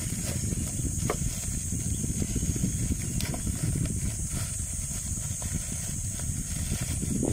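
Plastic packaging bag crinkling in the hands as it is unwrapped, a few soft crackles over a steady low rumble and a steady high hiss.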